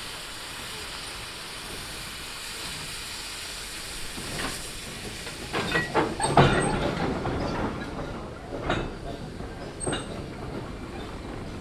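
Steam pannier tank locomotive hauling a goods train of GW wagons slowly past, steam hissing, then wheels and wagon couplings clanking and knocking as the wagons roll by; the knocks come irregularly, loudest about six seconds in.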